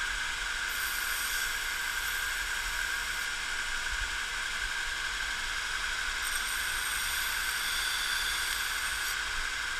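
Shop-built KMG-style 2x72 belt grinder, driven by a 5-horsepower three-phase motor, running steadily with a whine while a small metal piece is ground against the abrasive belt on the contact wheel. The grinding adds a higher hiss in two spells, about a second in and again past the middle.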